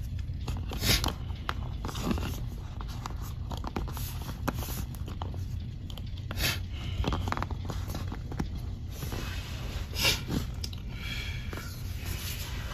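Small clicks and rubbing of fingers handling and posing a plastic action figure, over a steady low hum.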